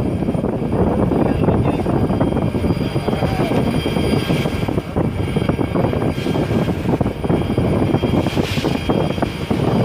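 Boat under way: its engine runs in a steady drone, mixed with water rushing past the hull.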